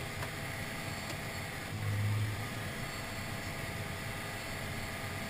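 John Deere 9R-series tractor engine running steadily, heard inside the cab, with a brief swell in its low hum about two seconds in.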